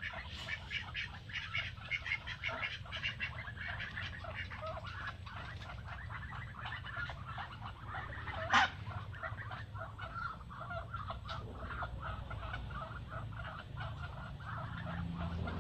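A flock of domestic Muscovy ducks foraging together, a busy run of many short, quick sounds from the birds. One sharp click or knock stands out about halfway through, over a steady low hum.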